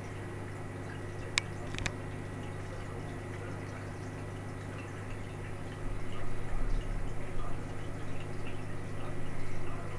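Marine aquarium equipment running: a steady low hum with water trickling and bubbling. Two sharp clicks come in the first two seconds, and from about six seconds in an irregular low rumbling knocking rises over it, stopping just before the end.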